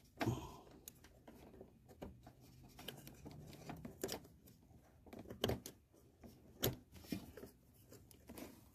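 Faint, irregular small metal clicks and scrapes as a spring-steel retaining clip on an oil cooler line fitting is worked loose by hand.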